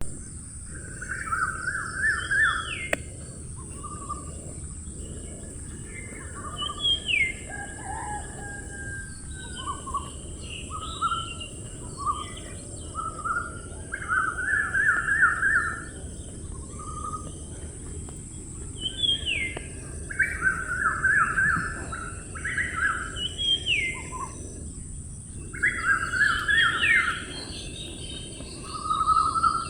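Several songbirds chirping and calling, short trilled phrases and upward-sweeping whistles every second or two, over a steady high-pitched hiss.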